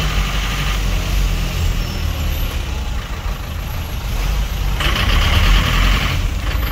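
Steady engine and road rumble heard from inside a vehicle crawling through heavy traffic, with a brief hiss at the start and another lasting about a second and a half about five seconds in.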